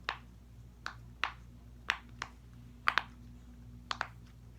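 Silicone pop-it bubbles on a keyboard-shaped pop-it fidget being pressed through one by one, each giving a sharp pop, about nine at an uneven pace of two or three a second, over a faint steady hum.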